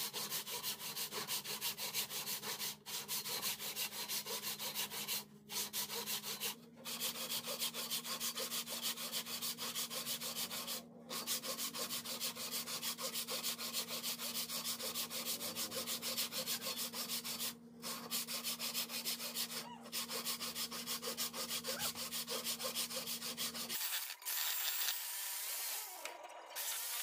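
Hand saw cutting through a wooden board in fast, even back-and-forth strokes, with a few brief pauses, stopping about three seconds before the end.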